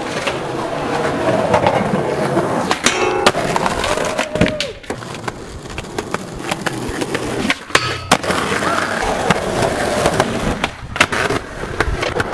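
Skateboard wheels rolling on concrete, with repeated sharp board clacks and landing knocks and a short scrape about three seconds in.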